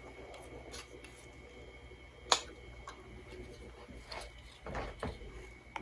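Faint handling noise and a few small plastic clicks as AA batteries are pressed into the radio's plastic battery holder, with one sharp click about two seconds in.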